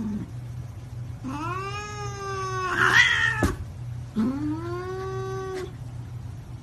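A domestic cat meowing in two long, drawn-out calls, each rising at the start and then held. The first ends in a louder, rougher cry, with a sharp knock just after it. A steady low hum runs underneath.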